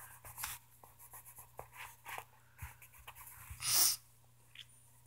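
Fingertip rubbing pencil shading into drawing paper: faint, scratchy friction with small ticks. About three and a half seconds in comes one short, loud puff of breath.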